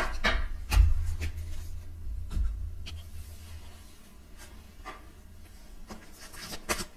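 Tarot cards being shuffled and handled: irregular soft clicks and rubbing with low handling thumps, loudest about a second in and growing fainter through the second half.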